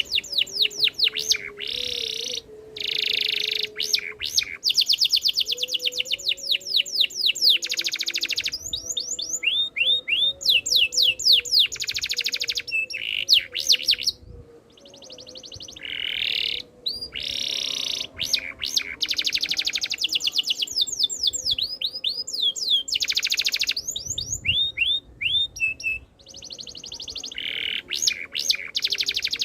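Domestic canary singing a long, continuous song of fast trills, rapid rising chirps and buzzy rolls, with a brief pause about halfway through.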